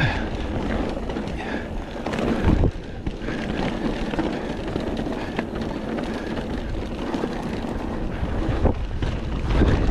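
Mountain bike running fast down a dirt forest trail: a steady rush of tyres on dirt and gravel with the bike rattling, wind buffeting the microphone, and a couple of heavier knocks over bumps, one about two and a half seconds in and another near the end.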